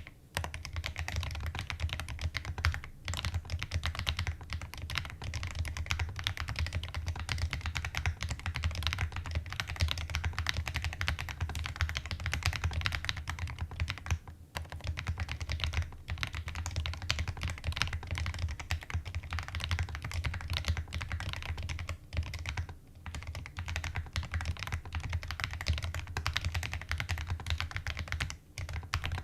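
ABM066 custom mechanical keyboard being typed on: a fast, continuous stream of keystroke clacks, broken by short pauses about halfway and about two-thirds of the way through.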